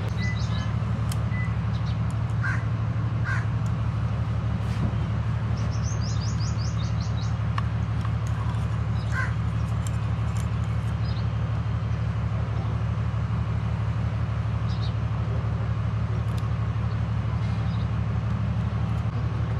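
A steady low hum runs throughout, with crows cawing now and then and a few light clicks. About six seconds in there is a quick run of high chirps.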